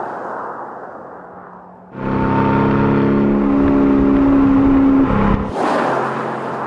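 Aston Martin DB11's 4.0-litre twin-turbocharged V8 driving by in three edited shots: first fading as the car pulls away, then, after a sudden cut about two seconds in, a loud steady engine note heard alongside the moving car, and after another cut a little past halfway, a close pass with tyre and road noise over a low engine drone.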